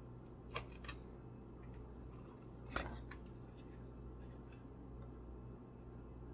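Small clicks and a short rustle that ends in one sharp snap about three seconds in, from the packaging of Caesar dog food being opened and handled. A steady low hum sits under it.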